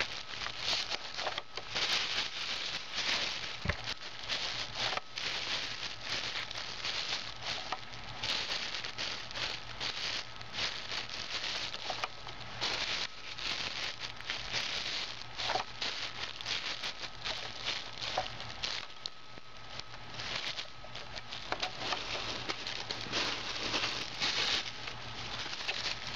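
Paper and plastic wrapping crinkling and rustling as they are pushed by hand into a small Lego-brick trash compactor, with light clicks of the plastic bricks, coming in irregular spells.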